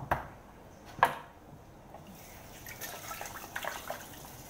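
Two sharp knocks of a stainless steel pot being handled at the sink in the first second. From about halfway a kitchen tap runs into a metal bowl as watercress is rinsed, with splashing and dripping.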